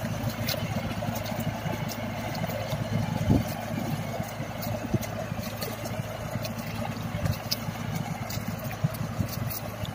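Farm tractor's diesel engine running steadily under load while it pulls a levee-building machine through wet paddy soil, with scattered short clicks over the engine hum.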